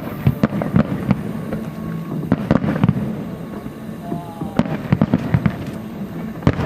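Fireworks shells bursting in quick, uneven succession over a low rumble: sharp bangs and crackles, thickest a little after two seconds in and again from about four and a half seconds.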